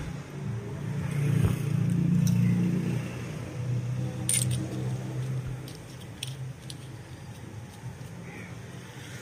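Light metallic clicks and clinks of a tractor diesel injector's nozzle and body being handled and fitted together by hand, with one sharper click about four seconds in. Under them a low engine hum swells over the first few seconds and fades away.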